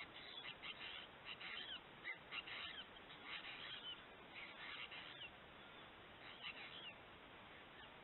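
A flock of apostlebirds giving short chattering calls in bunches about once a second, faint over a steady hiss.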